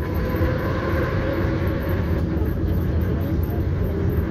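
Tatra T3 tram running along the track, heard from inside the car: a steady low rumble of wheels on rails with a faint steady whine above it.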